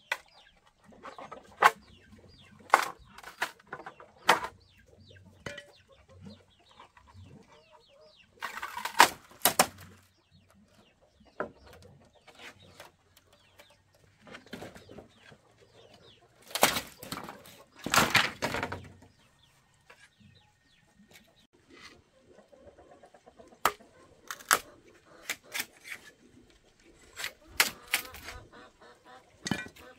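Chickens clucking, with sharp knocks every second or few seconds and two louder clusters of them about nine and seventeen seconds in.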